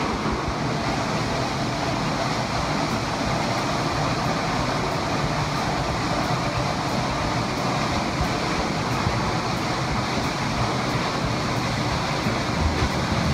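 Steady rush of a tall waterfall heard from the hollow behind its falling curtain of water.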